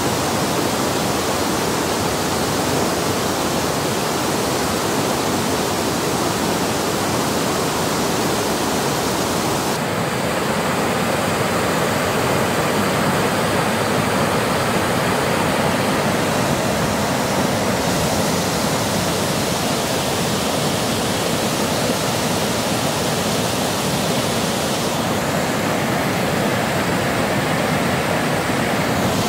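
Steady rush of river water spilling over a low weir, its tone shifting abruptly a few times.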